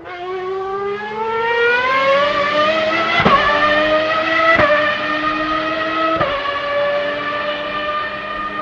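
Background music: a long held instrumental note that slowly slides upward, then changes to new held notes with a fresh attack about three times.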